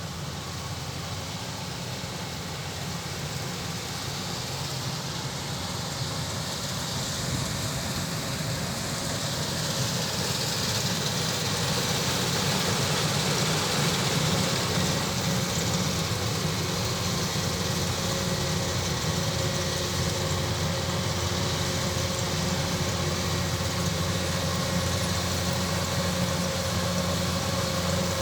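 Kubota DC-105X rice combine harvester running steadily. It grows louder over the first dozen seconds, then holds level.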